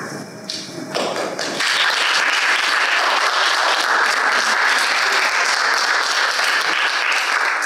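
Audience applause: a few scattered claps at first, swelling to full steady clapping about a second and a half in.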